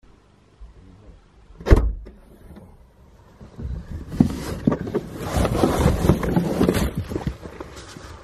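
A single sharp thump, the loudest sound, about two seconds in. It is followed by several seconds of rustling, knocks and bumps as hiking backpacks and boots are pulled out of a car boot.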